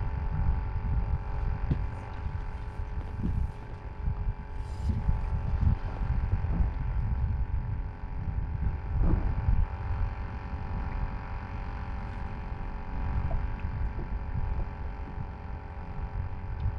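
Wind buffeting the microphone, making a low, uneven rumble that swells and fades, with a steady faint electric hum underneath.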